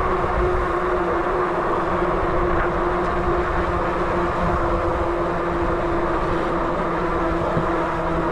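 Steady road drone while on the move: a constant hum over a low, rough rumble, unchanging throughout.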